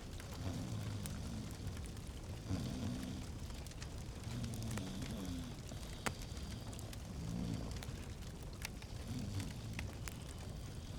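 Wood fire crackling in a fireplace, with scattered sharp pops over a low steady rumble; the loudest pop comes about six seconds in.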